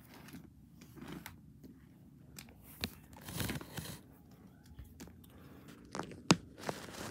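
Plastic animal figurines being handled and moved about on a carpet: rustling with scattered clicks and knocks, the loudest a sharp click a little after six seconds in.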